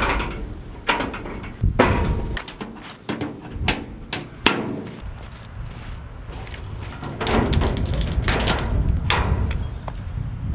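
Galvanised steel car trailer's tailgate and mesh side gate being swung shut and latched: a string of sharp metal clanks and thumps.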